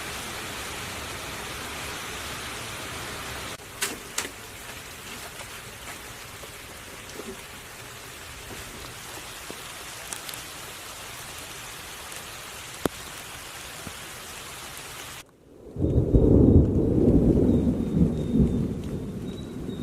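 Steady rain hissing, with a few sharp taps. After a sudden break about fifteen seconds in, a loud, low rumble of thunder fills the last few seconds.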